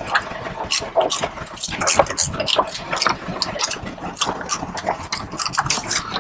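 Flange bolts being tightened through cup washers into the aluminum skid plate's nut inserts: a run of irregular metallic clicks and rattles, a few a second, as the tool works round the bolts.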